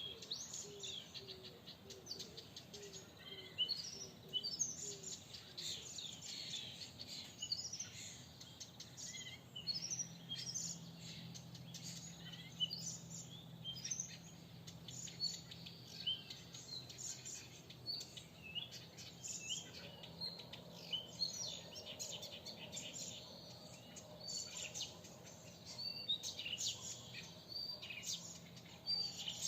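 Several small birds singing together in a spring forest: a dense mix of high chirps, twitters and short trills, with a lower note repeated about twice a second for the first few seconds.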